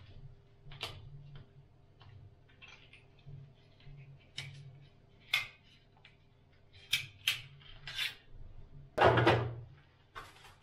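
Scattered small clicks and taps of hands working on cable and a lamp fitting at the ceiling, with a louder rustling knock about nine seconds in.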